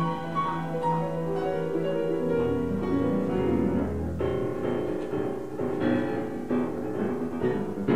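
Background piano music, its notes struck more often in the second half.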